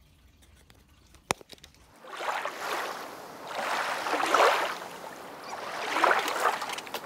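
A sharp click about a second in, then water splashing and gurgling in three swelling surges as the induction heater's coolant pump pushes water and trapped air through a hose into a water jug, purging air from the cooling loop.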